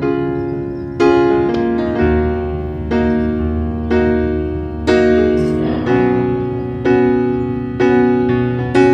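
Background piano music: gentle chords struck about once a second, each dying away before the next.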